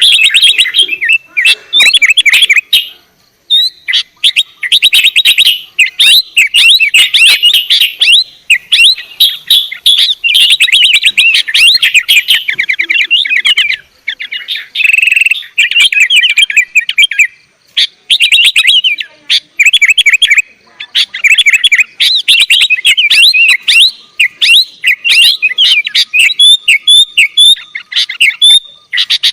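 Sooty-headed bulbul (kutilang) singing: loud, rapid runs of chirping notes in phrases a few seconds long, broken by short pauses.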